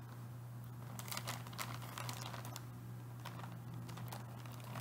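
Clear plastic bag of yarn skeins crinkling as it is handled, a scatter of short crackles, with a steady low hum underneath.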